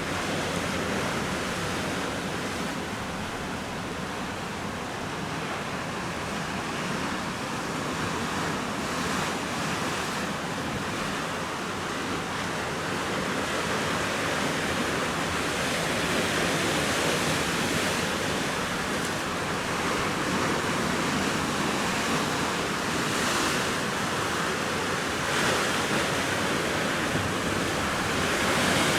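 Ocean surf breaking and washing on the shore: a steady rush of waves that swells and eases, somewhat louder in the second half.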